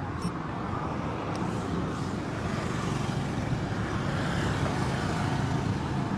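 Steady motor-vehicle rumble with road noise, running evenly throughout.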